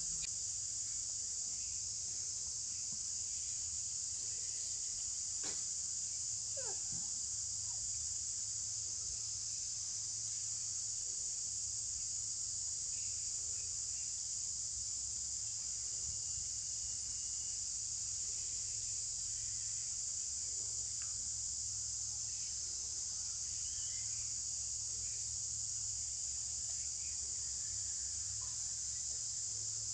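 Steady, high-pitched chorus of insects, with a low hum underneath.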